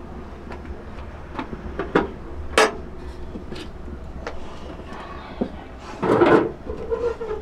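Light metal knocks and clinks of cookware being handled, then, about six seconds in, an aluminium pot set down onto a sheet-metal wood stove with a clatter and a short ring.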